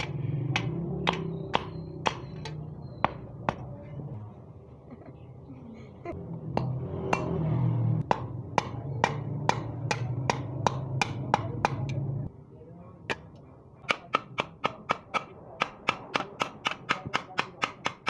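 Hand hammer striking a steel blade on a steel anvil block, sharp metallic strikes about two a second, speeding up to about four a second for the last few seconds.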